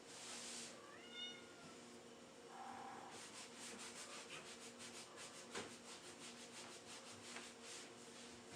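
A cat meows once, a short rising call about a second in. After that come faint, quick rubbing strokes at about four a second, over a low steady hum.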